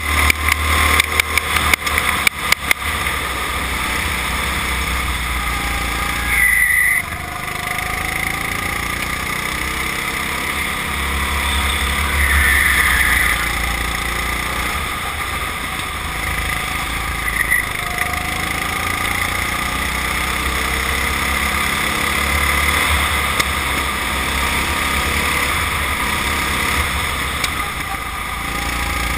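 Go-kart engine heard from an onboard camera, its pitch rising and falling as the kart accelerates and slows through the corners, under heavy wind rumble on the microphone. A quick run of sharp knocks sounds in the first few seconds.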